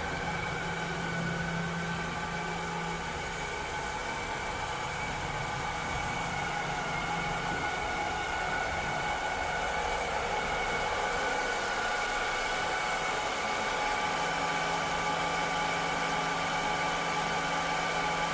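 Robotic vacuum cleaner running steadily: motor and fan noise with several high steady whining tones. A low hum drops out in the middle and comes back near the end.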